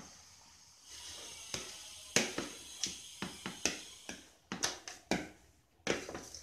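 Seasoned shredded chicken being mixed by hand in a plastic bowl: a string of light, irregular clicks and taps against the bowl.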